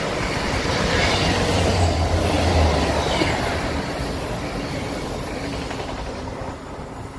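GWR Hitachi Intercity Express Train running past along the platform, with wheel-on-rail noise and a low hum from the train, loudest a second or two in and then dying away as its rear end goes by.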